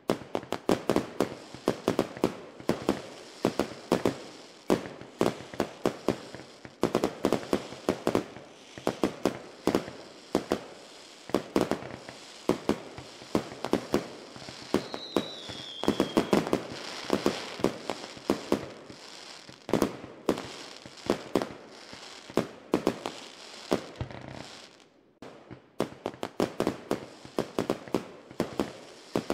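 Fireworks going off in rapid, overlapping bangs and crackles, with a short falling whistle about halfway through and a brief lull near the end.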